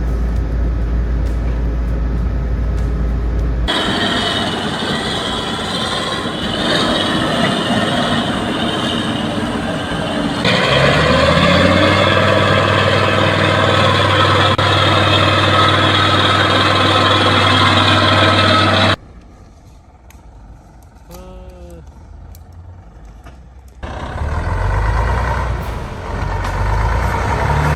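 Heavy tractor engines working while hauling logs, heard across several cut-together clips. About ten seconds in, an engine revs up and then holds a steady, loud running note. Near twenty seconds in it drops to a much quieter stretch before engine noise returns near the end.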